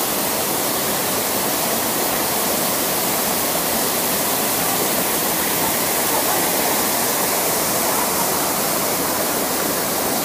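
Waterfall pouring into a rock pool: a steady rush of falling water.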